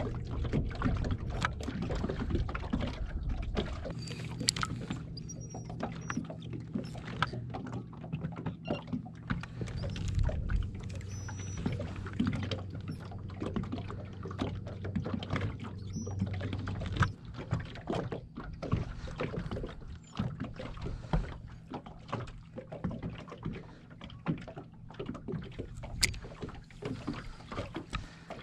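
Boat's Minn Kota electric trolling motor humming steadily, starting a few seconds in and cutting off a little past halfway. Throughout, small waves slap and knock against the hull.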